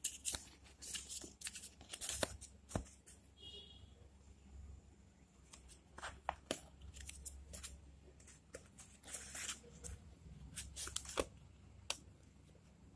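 Paper flaps and folded paper cards rustling and crinkling as they are lifted, opened and handled, in short irregular scratchy rustles.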